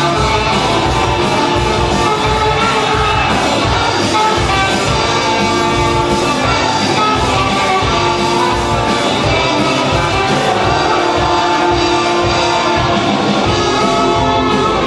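Live band playing rock music in a hall, loud and continuous with a steady driving beat.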